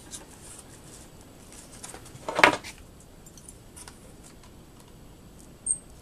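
Hard plastic RAM packaging being worked at by hand: scattered faint clicks, with one louder crinkle about two and a half seconds in.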